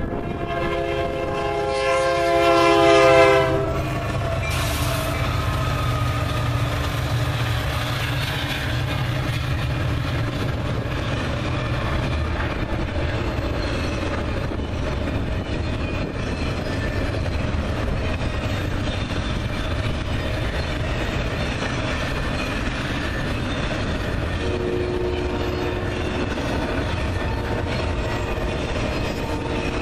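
Union Pacific freight train's diesel locomotive horn blowing a long blast as it approaches, cutting off about three and a half seconds in. It is followed by the low rumble of the locomotives and the steady rolling clatter of double-stack container cars passing close by on the rails.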